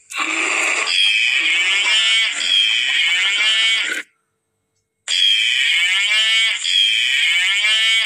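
Recorded animal-call sound effect played twice, with a silent gap about four seconds in: each time a run of calls sliding down in pitch.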